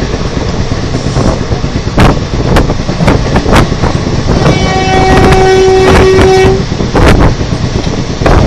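Express train passing at speed: wheels rumbling and clattering with sharp knocks every half second or so. About halfway through, the WAP-4 electric locomotive's horn sounds one steady blast of about two seconds.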